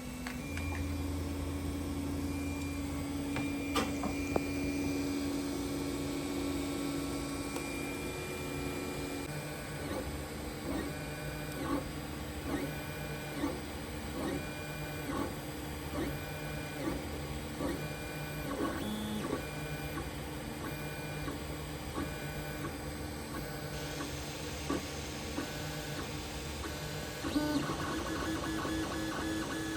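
Geeetech 3D printer running: a steady motor whine for the first several seconds, then a long series of short, evenly spaced stepper-motor moves, each a brief whine, at a little over one a second.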